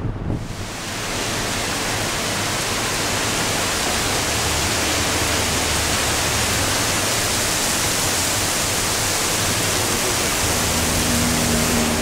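Heavy rain falling: a loud, steady hiss that starts abruptly just after the start, with a low steady hum underneath.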